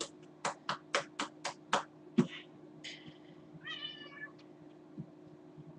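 A hand rapidly patting a cat's rump, six quick pats at about four a second, then a single heavier thump. About four seconds in the cat gives one short meow.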